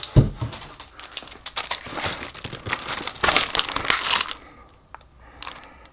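Plastic packaging crinkling and rustling as bags of exhaust hardware are handled and lifted out of the box. It stops about four seconds in, leaving only a couple of faint clicks.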